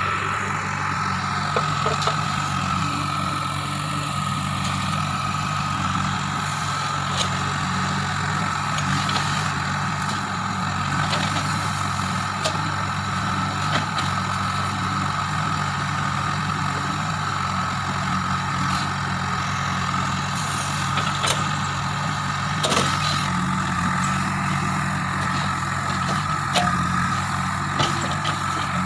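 JCB 3DX backhoe loader's diesel engine running steadily, with a steady high whine and scattered short clicks and knocks.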